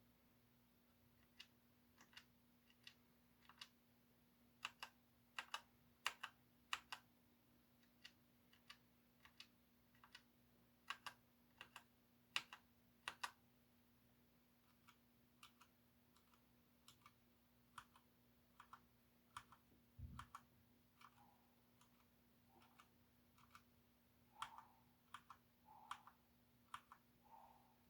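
Mechanical keyboard switches (Outemu Blue, Jixian Brown and Cherry MX Brown) pressed one at a time, each press and release a separate faint click, at an uneven pace of one or two a second. A dull thump comes a little past two-thirds of the way in, and after it the presses sound softer and lower.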